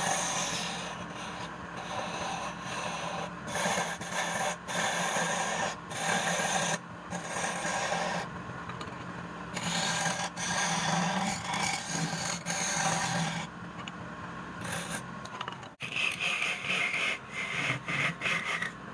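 Hand tool scraping against wood turning on a lathe, in passes of one to a few seconds with short breaks, over the steady hum of the lathe motor.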